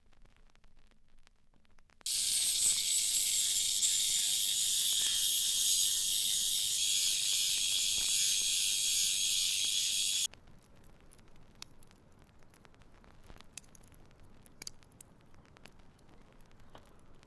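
A jet of spray or air hissing steadily at a high pitch. It starts suddenly about two seconds in and cuts off suddenly some eight seconds later. Afterwards there are only faint small clicks of handling.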